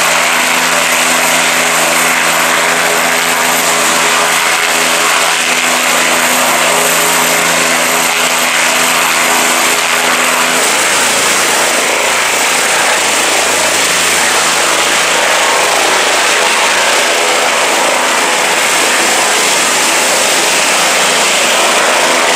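Bell 407 helicopter's single turboshaft engine and main rotor running loud and steady at flight power. The sound changes abruptly about halfway through as the helicopter lifts off its skids into a low hover.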